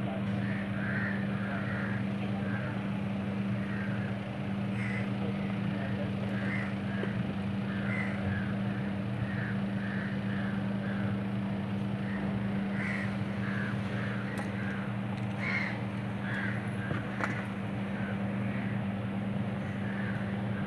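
Birds calling over and over in short calls, about two a second, over a steady low hum.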